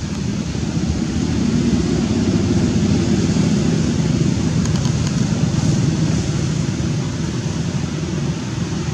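Steady low rumbling noise that does not stop, with a few faint high ticks about five seconds in.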